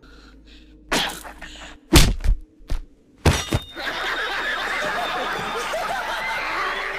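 Several sharp knocks or whacks in the first half, the loudest about two seconds in. From about four seconds in, a studio audience laughs and claps steadily, with a man laughing loudly.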